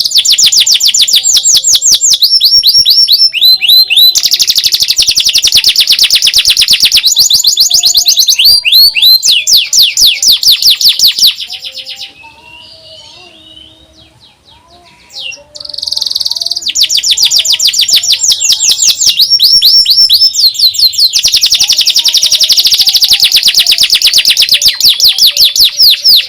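Domestic canary singing its rapid trilling 'nyerilik' song: long runs of fast, evenly repeated down-sweeping notes, high-pitched and loud. About halfway through the song drops for a few seconds to softer, scattered twittering, then the trills resume.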